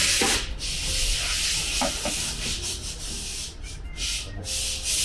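Hand sanding or filing strokes scraping back and forth over a repaired van body panel, with a few short breaks. This is done to show up the low spots that the abrasive doesn't reach.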